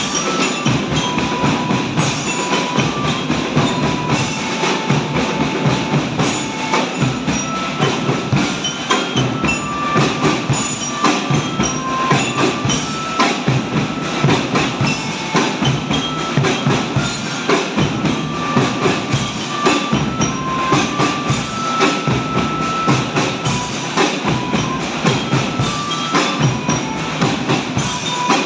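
A marching drum band playing: dense, fast drumming with a melody of short pitched notes over it.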